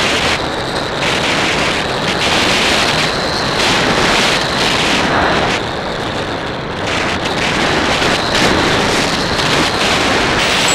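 Airflow rushing over the onboard camera's microphone of a radio-controlled foam plane in flight, rising and falling in gusts as the plane banks, with a steady high whine from its motor underneath.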